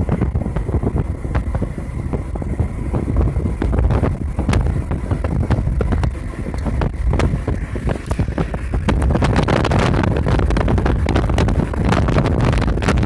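A car driving, with road rumble and wind buffeting the microphone in gusty crackles, getting louder over the last few seconds.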